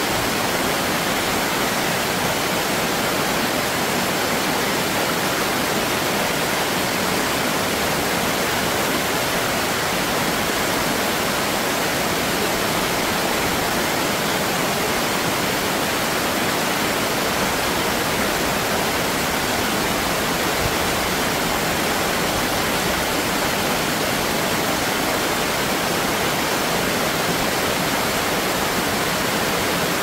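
Stream water pouring steadily over a low concrete weir, an even rushing sound with no breaks.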